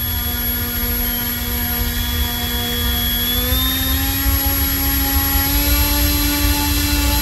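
Electric motor spinning a 3D-printed scale Hamilton Standard 11x6 propeller on a thrust test stand at about half throttle: a steady hum-whine with a low rumble of prop wash. Its pitch creeps up a little from about two and a half seconds in.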